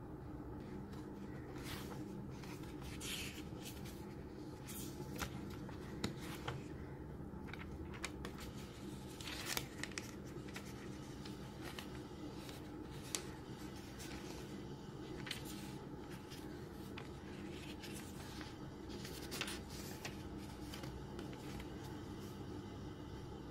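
Pages of an A6 Hobonichi notebook of thin Tomoe River paper being handled and flipped: scattered short rustles and light taps over a steady low hum.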